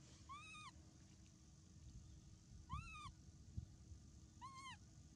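Baby macaque giving three short coo calls about two seconds apart, each rising and then falling in pitch, with a couple of dull low thumps in between.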